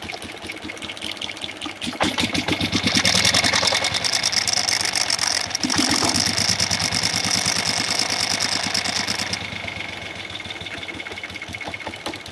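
1971 Moto Guzzi Ambassador's V-twin running during carburettor tuning. Its revs rise sharply about two seconds in, hold higher, then drop back toward a slower idle near the end. The owner finds one cylinder runs worse than the other.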